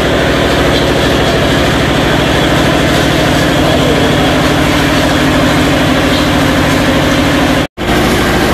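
Small stationary single-cylinder diesel engine running steadily with a rapid, even beat, driving a spice-grinding mill; the sound breaks off for an instant near the end.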